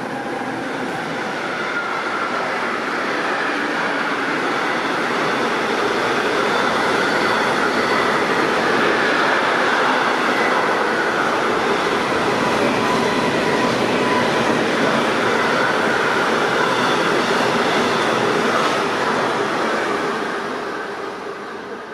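Freight train running through a station behind an electric locomotive: the steady noise of wagons passing on the rails, building up at the start and fading near the end as the train goes by.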